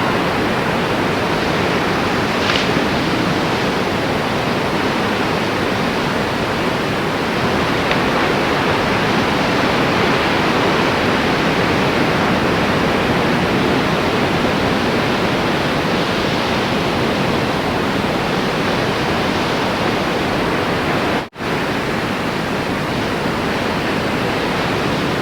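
Strong wind blowing over the microphone as a steady rushing noise, broken off for a moment about 21 seconds in.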